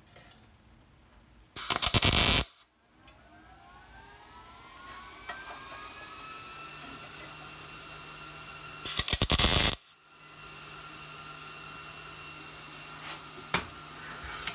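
Two short MIG welding tacks, each under a second of arc noise, about seven seconds apart, tacking a stainless steel mesh vent into a steel tube. Between them a machine whine rises in pitch and settles to a steady tone, and a steady hum follows the second tack.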